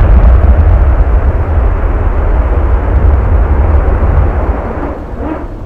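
Starship Ship 24's Raptor rocket engine firing during a static fire test: a loud, deep, crackling roar that eases off near the end.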